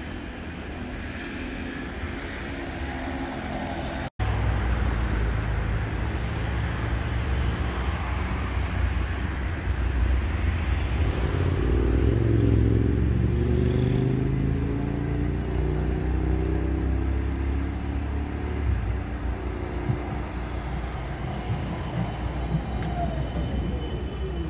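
Siemens Combino tram running, a low rumble with the whine of its electric traction motors rising and falling in pitch. The sound drops out for an instant about four seconds in and comes back louder, and near the end a whine falls steadily in pitch as the tram slows.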